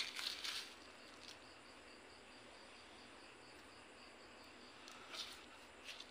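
Fingers brushing and pressing moss and potting soil on a bonsai pot: short scratchy rustles in the first half-second and again twice near the end. Under them runs a faint, steady chirring of insects.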